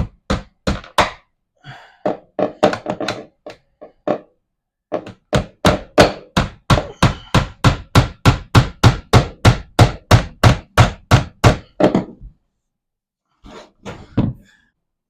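A hammer driving finishing nails into wooden trim. There are a few scattered blows first, then a long run of steady strikes at about three a second, and a few lighter taps near the end.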